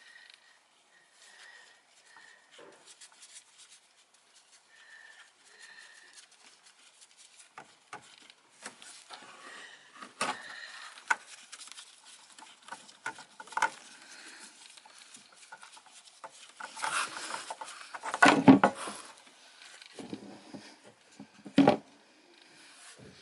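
Hand tools and hands working the old oil filter off a Peugeot Metropolis 400: irregular small clicks, taps and scrapes, with a louder cluster of knocks and scraping about three quarters of the way through and one sharp knock near the end.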